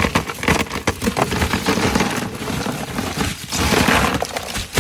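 Ice cubes poured from a plastic bag into a plastic cooler, clattering in a dense, continuous run of sharp clicks and rattles against each other and the cooler walls.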